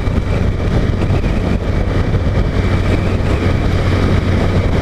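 Honda CG 150 Titan's single-cylinder four-stroke engine running at a steady, gentle cruise, heard from the riding motorcycle with a steady rush of wind and road noise.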